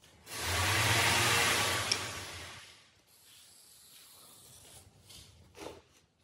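Marker pen scratching along plywood as a long line is drawn against a straightedge: one loud stroke of about two seconds, then fainter rubbing and handling of the wood.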